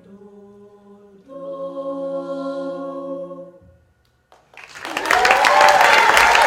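An a cappella vocal group sings the song's final held chord, which cuts off about three and a half seconds in. After a brief silence the audience applauds loudly, with some cheering.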